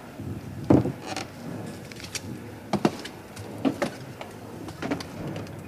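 Footsteps and scuffs on a hard floor as a woman walks out through a doorway: a handful of irregular knocks, the loudest about a second in, over a low background rumble.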